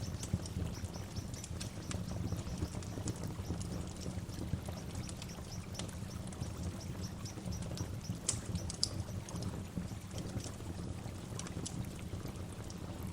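Waterfall rushing steadily with a deep, full low rumble, while small birds call in short, high chirps and quick chirp series over the water, with a couple of sharper notes standing out past the middle.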